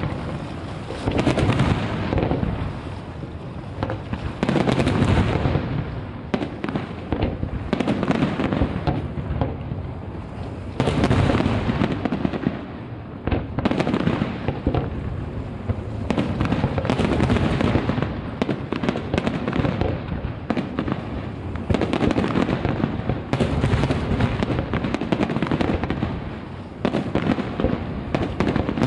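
Aerial firework shells bursting in a continuous barrage of booms and crackles, the volley swelling and easing every few seconds.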